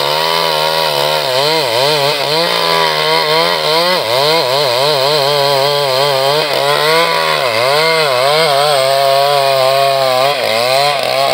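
Chainsaw running under load as it cuts into a tree trunk, its engine pitch wavering and dipping every few seconds.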